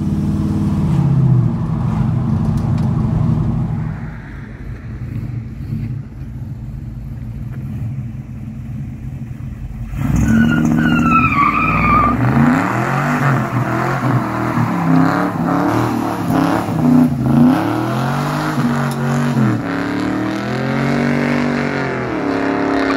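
Small-block Chevy V8 of a 1977 Chevy C10 breathing through Flowmaster Hushpower HP-2 mufflers. It is first heard from inside the cab, pulling hard and then cruising more quietly. About ten seconds in it is heard from outside doing a burnout: a brief tire squeal as it launches, then the engine revving up and down as the throttle is pedaled to keep the rear tires spinning.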